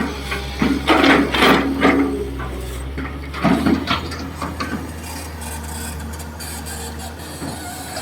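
Hitachi EX220-3 long-boom excavator working, its diesel engine humming steadily under a run of irregular scrapes and knocks from the digging in the first half, which then settle to the engine alone.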